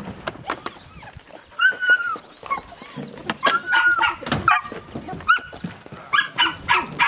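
Dogs barking and yelping in quick high-pitched runs, with one longer wavering call about one and a half seconds in, among a pack being fed dry kibble on the ground.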